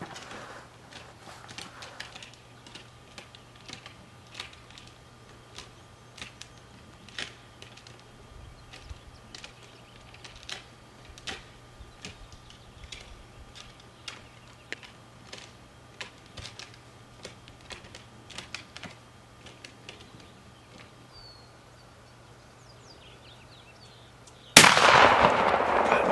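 A single shotgun blast, sudden and loud, about three-quarters of a second before the end, with a short ringing tail as the hunter fires at a strutting wild turkey gobbler. Before it, a long stretch of quiet open-air ambience with faint scattered clicks.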